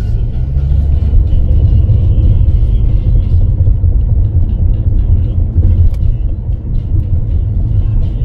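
Loud, steady low rumble of a moving vehicle.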